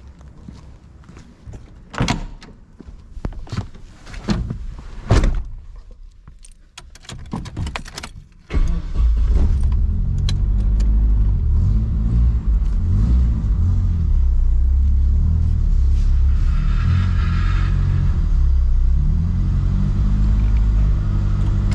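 Clicks, knocks and jangling, then about eight and a half seconds in a car engine starts and runs loudly, a low rumble whose pitch wavers up and down.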